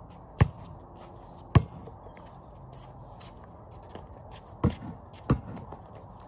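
A basketball bouncing on a concrete driveway, four single sharp thuds: two about a second apart near the start, then two closer together near the end.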